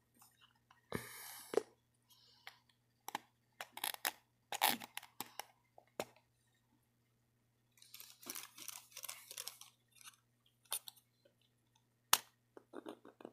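Scattered small clicks, scrapes and rustles of hands working a plastic Bachmann model hopper car, trying to prise its coal load out.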